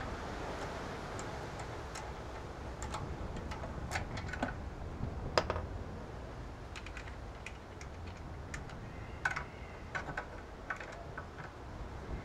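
Irregular metallic clicks and taps of a socket wrench and wheel bolts as the bolts are undone on a car's front wheel, the loudest about halfway through and a cluster of them near the end.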